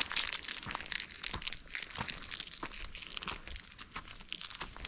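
A hiker's footsteps on a trail: irregular crunches and crackles underfoot.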